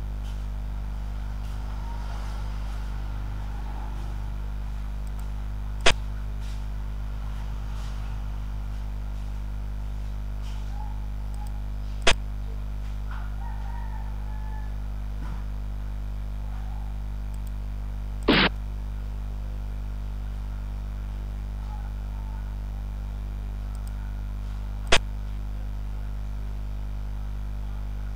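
Sharp click sound effects of xiangqi pieces being placed on a digital board, four single clicks about six seconds apart and one longer buzzing tone about eighteen seconds in, over a steady low drone.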